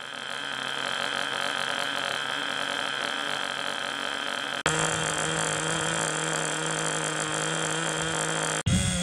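Small 2.5 cc (.15) nitro glow engine of the Project Meteor RC snowmobile idling with a steady buzz. The sound breaks off abruptly and picks up again twice, about four and a half seconds in and near the end.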